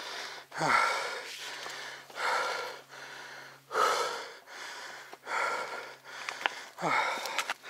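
A man breathing hard and fast, out of breath from riding a mountain bike: about five loud breaths, roughly one every second and a half, with quieter breaths between.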